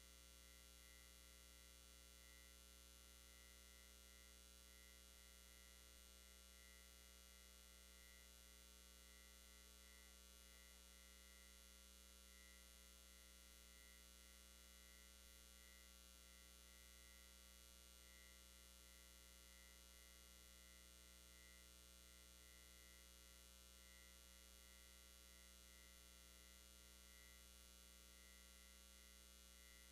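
Near silence: a faint, steady electrical mains hum.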